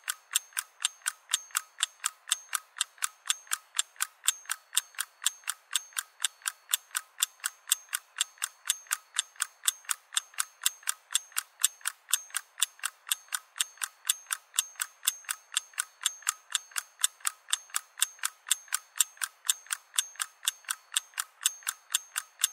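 Steady, evenly spaced mechanical ticking, about three to four sharp clicks a second, unchanging throughout.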